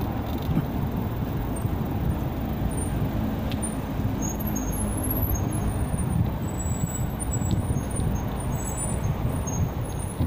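Wind rushing over the microphone of a camera carried on a moving bicycle, a steady low rumble that rises and falls, mixed with tyre and road noise from riding along the pavement.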